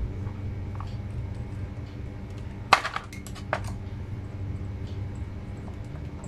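A few sharp metallic clinks of small metal items being handled, the loudest about two and a half seconds in, over a low steady hum.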